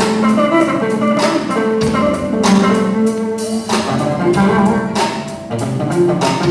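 Music: a band with guitar and drum kit playing a steady beat.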